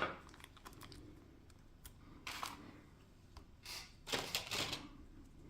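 Decorating tape being pulled off its roll in a few short rasping rips, one about two seconds in and two close together near the end, among small handling clicks.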